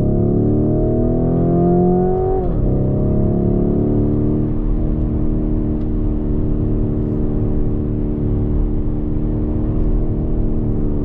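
Lamborghini Urus's twin-turbo V8 accelerating, the revs rising until a quick upshift about two and a half seconds in drops the pitch, then pulling a little higher and settling to a steady cruise.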